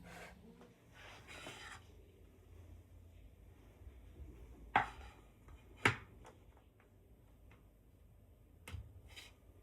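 Quiet handling sounds: a few light knocks and clicks of objects being set down or moved, the two sharpest about five and six seconds in and another near the end, over a low steady hum.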